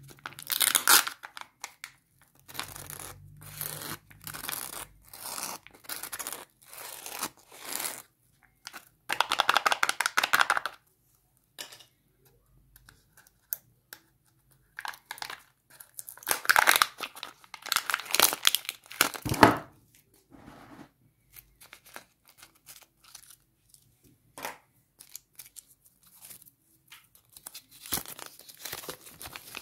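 Kinder Joy egg packaging being peeled open and the toy's plastic wrapper and paper leaflet crinkled and torn by hand, in irregular bursts of rustling and tearing with short pauses between. One sharp click or snap a little past the middle.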